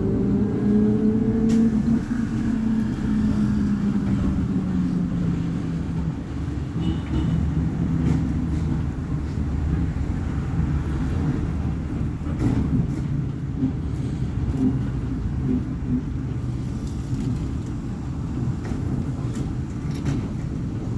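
Volvo B58 bus's six-cylinder diesel engine under way: it climbs in pitch for the first second or so, drops back about 1.5 s in, then runs steadier and lower before rising again at the very end. A few sharp knocks or rattles come through it.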